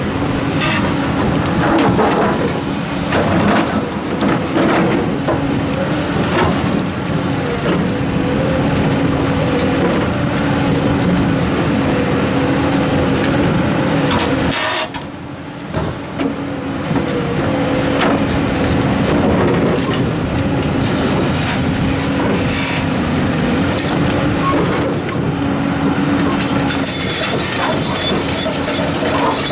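Komatsu hydraulic excavator working: a steady diesel engine note under load, with rocks scraping and knocking as they are placed. It drops briefly about halfway through.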